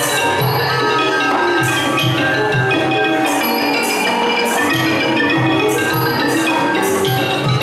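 Thai piphat ensemble playing: ranat xylophones and khong wong gong circles run a dense, continuous melody, over regular low drum strokes and bright metallic strokes keeping a steady beat.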